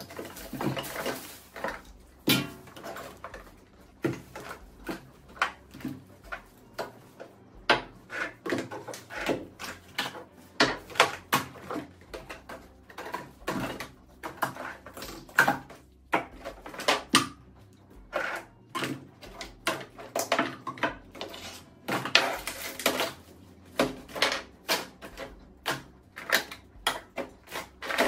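Plastic toiletry bottles, jars and tubes clicking and clattering as they are picked out of a drawer and set down on a bathroom sink counter, in quick, irregular knocks.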